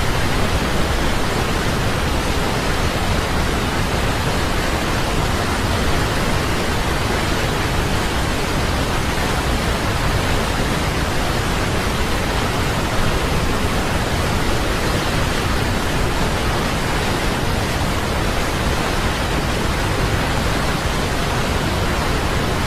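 Waterfall pouring: a loud, steady rush of falling water that does not change.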